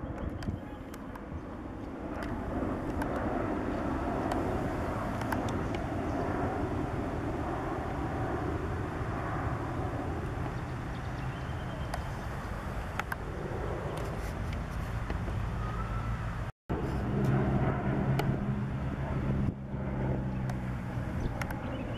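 Boeing 737-800 jet airliner passing overhead on approach, its engines giving a steady rushing noise. After a sudden cut about three-quarters of the way through, a Fokker 50 turboprop flies over, its propellers giving a steady low drone.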